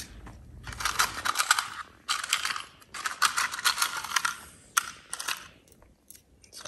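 Small stainless steel screws rattling and clinking as a hand rummages through them in a plastic compartment box. There are three stretches of rattling, each about a second long, then a couple of single clicks near the end.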